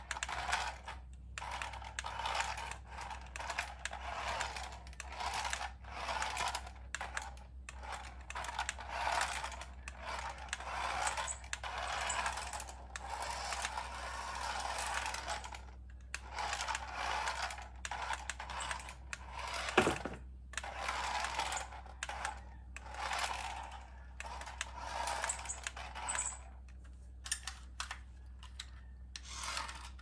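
Hello Kitty remote-control toy car's small electric motor and plastic gears whirring in short stop-start bursts as it is driven about, with one sharp click about two-thirds of the way through.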